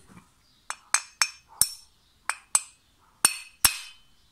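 Hammer tapping the seized decompression valve in an aluminium Polini moped cylinder head to knock it free. About eight sharp metallic taps with a short ring, some in quick pairs.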